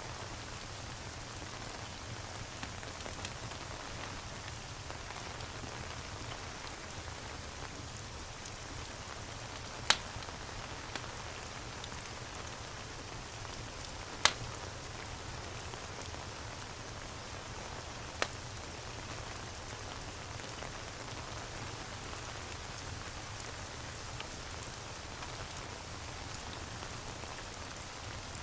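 Steady rain, with a crackling fireplace giving a few sharp pops: three loud ones, about 10, 14 and 18 seconds in, and smaller ones between.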